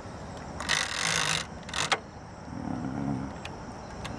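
Hands handling an old portable typewriter: a scraping slide of nearly a second, then a shorter scrape or clatter about a second later.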